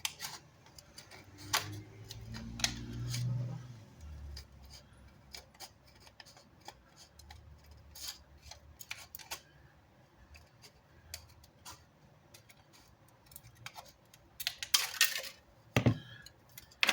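Scissors snipping and clicking during a subwoofer repair, with small handling clicks, a louder rustle about fifteen seconds in and a thump just before the end.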